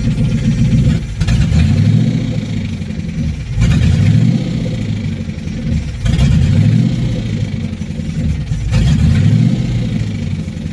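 Car engine idling and blipped four times, about every two and a half seconds, its pitch rising and falling with each rev. It carries an unidentified engine noise that the owner is trying to place as rod knock, lifter tick or timing chain.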